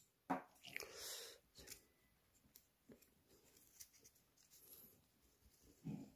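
Quiet handling noises: a sharp click just after the start, then soft rustling and scattered small clicks as chopsticks pick the rice straw out of fermented cheonggukjang soybeans.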